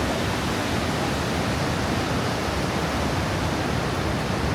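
Steady rush of Vøringsfossen, a large waterfall dropping 145 metres, heard from the bridge as an even, unbroken roar of falling water.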